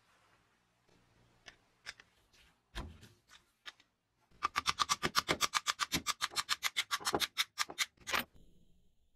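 Rusty metal tape-gun parts handled and turned by hand: a few separate clicks and taps, then a fast, even run of sharp metallic clicks, about eight a second, for roughly four seconds, stopping suddenly near the end.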